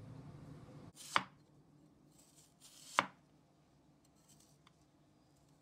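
Kitchen knife slicing through raw potatoes onto a wooden chopping board: two sharp chops just under two seconds apart.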